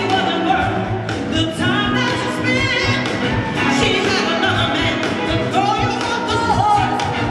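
Live soul band playing: electric guitars, drums, and a horn section of saxophone and trumpets, with singing over the top.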